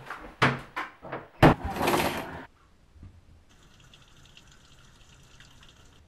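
A wooden interior door being handled: a few knocks and clicks, then a loud bang about a second and a half in, followed by a short rush of noise that cuts off abruptly. After that, only a faint high hiss.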